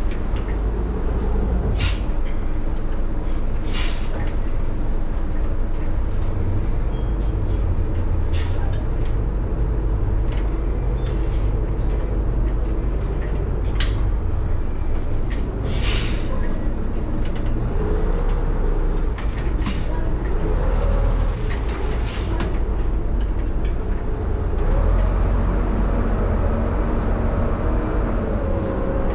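A 1976 Leyland Leopard bus's Leyland 680 11.1-litre diesel engine running while the bus is under way. Its note rises twice in the latter half as it pulls. Several short sharp hisses and clicks come through, the strongest around the middle.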